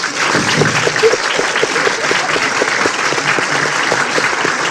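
Audience applauding, a dense, steady clapping from a large crowd.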